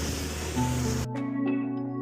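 Background music with plucked notes, over a steady rushing noise that cuts off suddenly about a second in.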